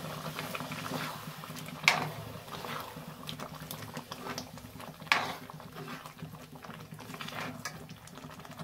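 Matar paneer gravy bubbling in a metal pan, thinned with hot water, while a spoon stirs through it; the spoon knocks sharply against the pan twice, about two seconds and five seconds in.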